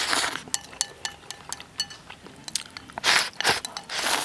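A person eating braised pork hock close to the microphone: noisy bites and chewing, with three louder bursts and many light clicks between them.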